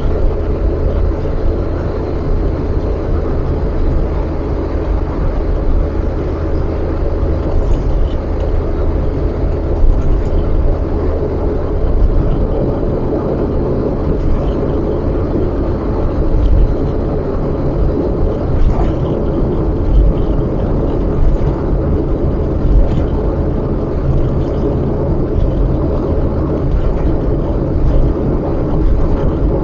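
Steady road and engine noise of a car being driven, heard from inside the cabin, with a constant low hum.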